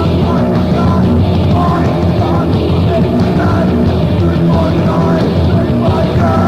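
Japanese crust punk band recording: a loud, dense wall of distorted full-band hardcore punk with no let-up.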